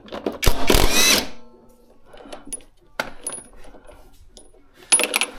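A power drill-driver runs briefly with a rising whir about half a second in, then metal clicks and taps, while the worn, loose drum pulley of a washing machine is worked on for removal.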